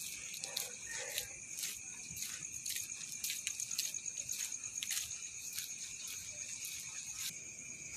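Insects, likely crickets, trilling steadily at a high pitch, with irregular sharp clicks over them for most of the stretch until they stop near the end.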